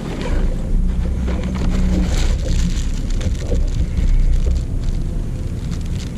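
Wind buffeting the microphone: a loud, steady low rumble, with scattered clicks and rustles over it.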